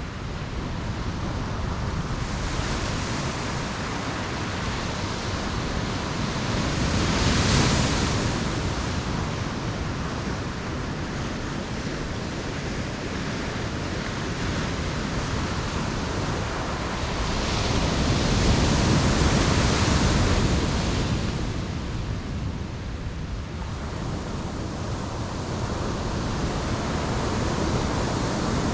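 Ocean waves breaking on a beach: a steady wash of surf that swells twice, around eight seconds in and again near twenty seconds, with some wind.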